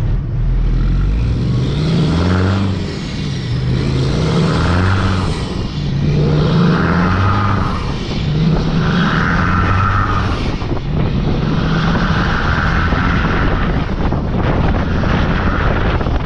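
Peterbilt semi truck's diesel engine pulling a loaded lowboy trailer, accelerating hard through the gears: the engine note climbs, breaks off at an upshift and climbs again, about six times, over a steady road and wind rumble.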